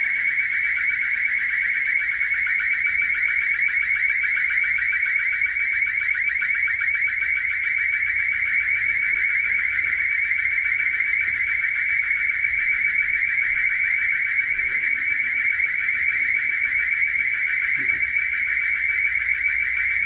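Building alarm sounder going off: a loud, steady, high-pitched tone with a fast pulsing flutter. It appears to have been set off with a staff panic button.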